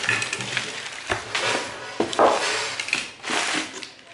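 Crumpled newspaper packing being handled and pulled out of a cardboard box: irregular rustling and crackling, with a few sharp knocks from the box.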